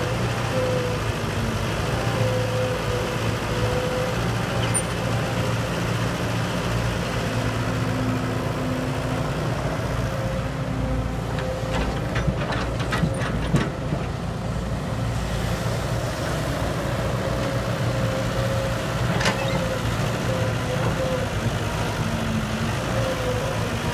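Heavy diesel engines of an excavator and dump truck running steadily while soil is loaded. About halfway through there is a quick cluster of sharp knocks, and one more knock a few seconds later.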